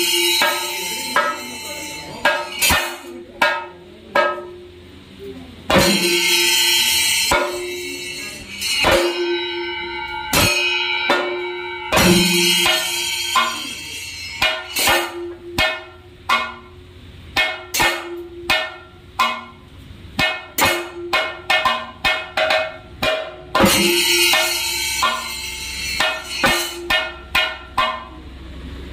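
Thayambaka drumming: chenda drums struck with sticks in fast, uneven runs of sharp strokes. Two stretches of bright ilathalam cymbal clashing sound over them.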